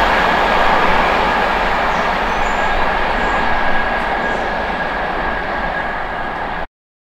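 Passenger train hauled by two Class 47 diesel locomotives running away into the distance. Its rumble fades slowly under a steady high whine, then the sound cuts off suddenly near the end.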